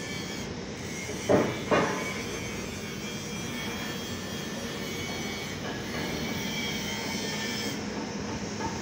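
Steady machinery noise of a steel fabrication workshop, with two sharp knocks in quick succession a little over a second in.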